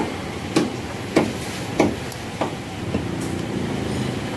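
Heavy meat cleaver chopping mutton on a wooden butcher's block: about six even blows, a little over half a second apart, which stop about three seconds in. A steady background noise runs underneath.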